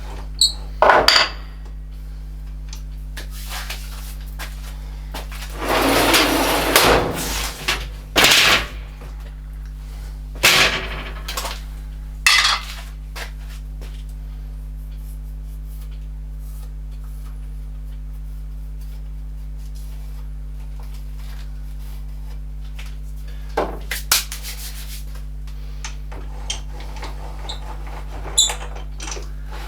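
Intermittent knocks and clanks of metal tools and parts being handled while working on a lathe, with a denser two-second run of noise about six seconds in. A steady electrical hum runs underneath.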